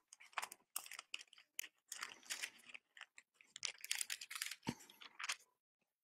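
Thin pages of a small Bible being leafed through by hand: a run of short, irregular paper rustles and flicks.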